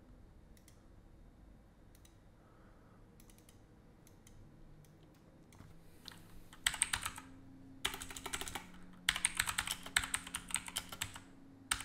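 Typing on a computer keyboard: a few scattered clicks at first, then from about six and a half seconds in, three quick runs of keystrokes with short pauses between them.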